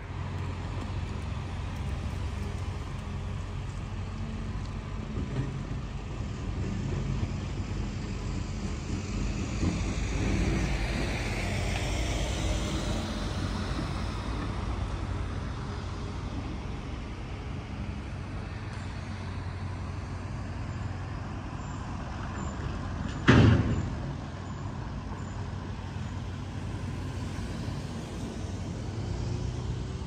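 Heavy diesel engine running steadily at street works, swelling for a few seconds around ten seconds in, with a single loud bang about 23 seconds in.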